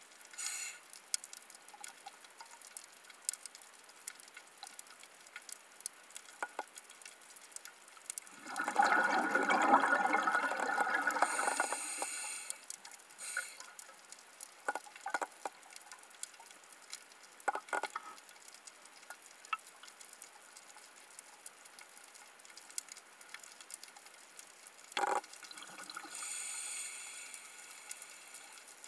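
Scuba diver breathing through a regulator, heard underwater: a long gush of exhaled bubbles about eight seconds in, then the hiss of an inhale. A shorter breath follows near the end, with scattered faint clicks and crackles between.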